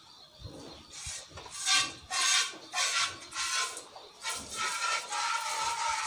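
Hand milking a cow into an empty metal pail: jets of milk hiss into the bucket in alternating strokes about two a second, each one ringing the metal, the strokes coming faster and closer together in the second half.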